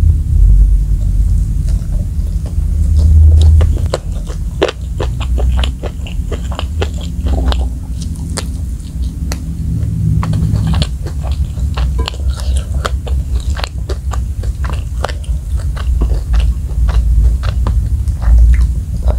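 Close-miked chewing and biting of spicy fried chicken and fried rice, with many sharp crunches in quick succession over a steady low rumble.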